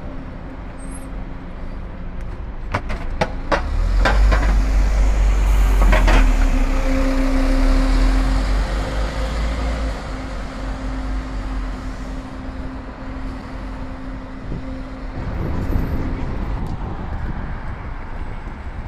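Scania OmniCity double-decker bus pulling away and driving off, its engine rumbling loudest for several seconds with a steady whine over it, then fading into general bus and car traffic.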